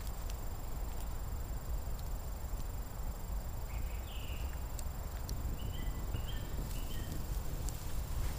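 Pine-wood campfire crackling, with a few scattered sharp pops over a steady low rumble. A handful of short high chirps come in the middle.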